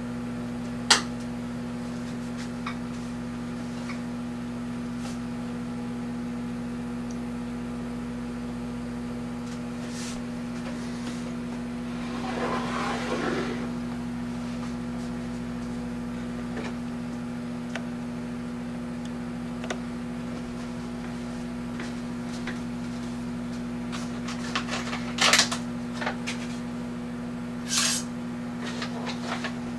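Amazon Basics 0.7 cu ft microwave oven running with a steady hum. A sharp click comes about a second in, a brief rustle near the middle, and a few louder clacks near the end.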